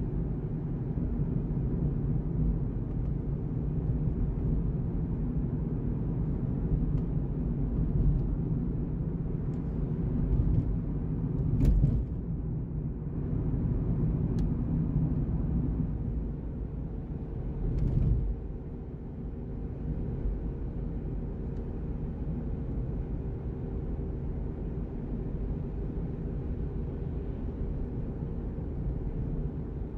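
Steady low rumble of road and engine noise from a car driving at highway speed, heard from inside the cabin. A couple of brief knocks stand out, about twelve seconds in and again about six seconds later.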